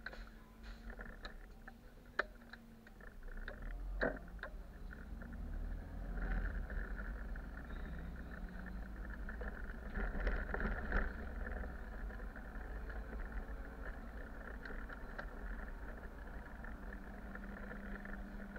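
A bus heard from the driver's cab while driving: its engine and the road give a steady low rumble. Several sharp knocks and rattles come in the first few seconds, the loudest about four seconds in, and there is a louder, noisier stretch about ten seconds in.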